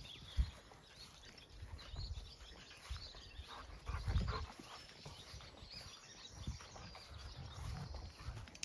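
Footsteps of someone walking on grass, irregular low thumps with a few louder bumps, one about four seconds in. Faint short high chirps come and go above them.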